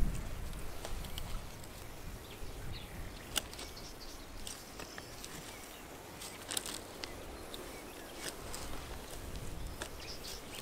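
Hands working a leaking black plastic water pipe joint in dry soil: scattered light clicks and scuffs of plastic and earth, with one sharp knock at the very start.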